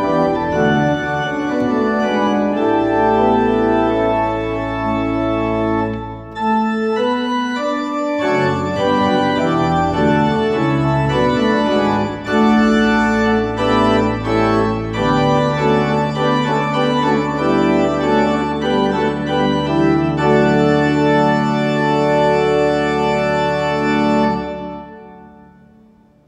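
Church organ playing sustained chords over long held pedal bass notes, with a brief break about six seconds in. The final chord is released near the end and dies away in the room's reverberation.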